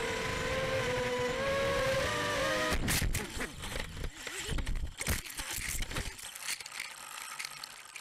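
Racing quadcopter's electric motors whining, the pitch wavering and stepping up. About three seconds in the whine breaks off into a run of hard knocks and rough clattering noise, which thins out toward the end.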